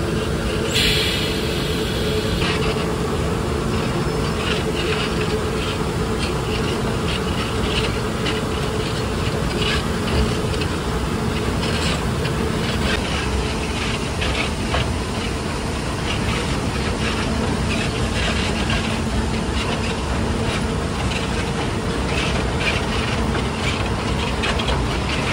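Hokuriku Juki Kogyo narrow-gauge diesel locomotive running slowly, its engine giving a steady hum under irregular clicking and clattering from the wheels on the track.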